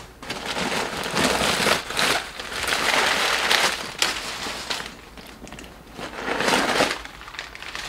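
Rustling and crinkling of a handbag's dust bag being handled and folded, in two spells: a long one over the first four seconds and a shorter one about six seconds in.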